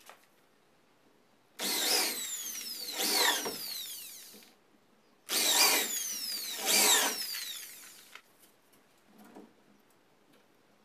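Corded electric drill boring into a wooden slat, run in two bursts of about three seconds each, the motor's whine falling away as it spins down at the end of each.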